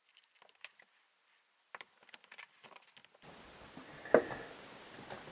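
Faint scattered clicks and squeaks from handling a small rubber roller-ski tire as its bead is coated with Armor All, then one sharp knock about four seconds in. A faint steady hiss comes in a little past the middle.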